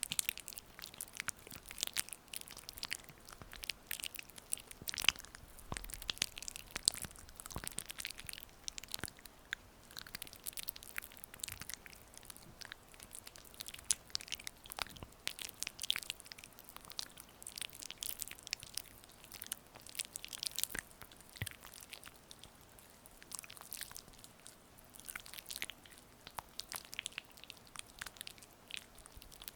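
Hands slick with massage oil rubbing and kneading close to the microphone, making a continuous run of irregular crackling, slippery clicks.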